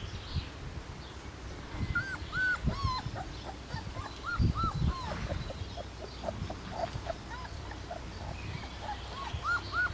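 Bernese Mountain Dog puppies whimpering in short, high, rising-and-falling squeaks while nursing. The squeaks come in a run about two seconds in and again near the end, with occasional low thumps.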